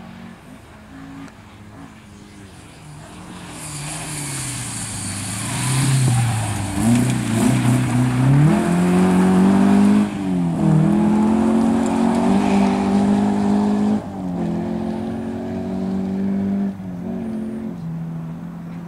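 Rally car coming through a corner. Its engine drops low as it slows, then revs hard as it accelerates away, the pitch falling back at each of three upshifts. It is loudest in the middle, with a wash of tyre and road noise as it passes.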